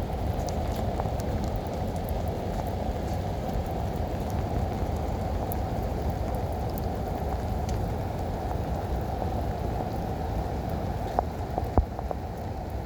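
Heavy rain pouring steadily, with scattered drop impacts and a couple of sharper knocks near the end.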